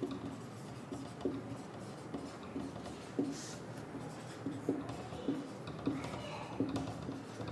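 Marker pen writing on a whiteboard: faint short strokes, one or two a second, as words are written out.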